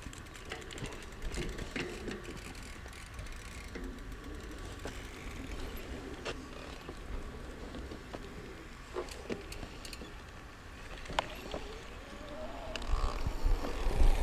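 Cube Stereo Hybrid 140 electric mountain bike rolling down a dirt trail: tyres rumbling and the drivetrain rattling and clicking over bumps. Wind on the microphone grows louder over the last couple of seconds as speed builds.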